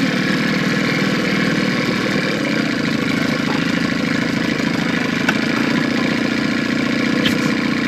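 Boat's outboard motor running steadily at low speed.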